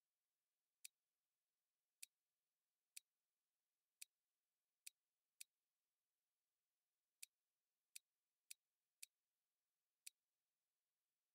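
Faint, sharp single clicks of a computer mouse button, about eleven at uneven intervals, some in quick pairs, over near silence.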